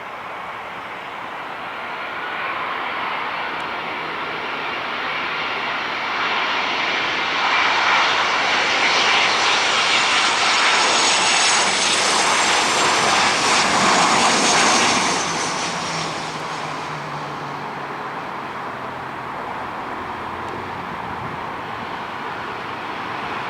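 Boeing 737-800's twin CFM56 turbofans passing close by. The roar and high whine build over several seconds, peak around the middle, then fade to a lower rumble.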